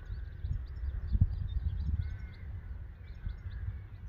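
Wind buffeting the microphone in a low rumble, with a thump about a second in. Over it, small birds give rapid, high chirps.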